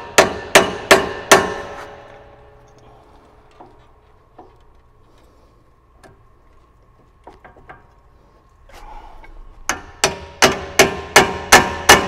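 Hammer striking metal at a Brembo brake caliper, sharp ringing blows. There are four in the first second and a half, then a lull with a few faint taps and clinks, then a fast run of blows, about three a second, from near ten seconds on.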